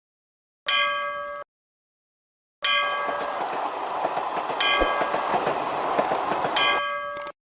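Metallic clanging strikes of a railroad crossing bell. One rings about a second in and is cut off short; then strikes come about every two seconds over the rumble and clatter of a passing train, which stops abruptly near the end.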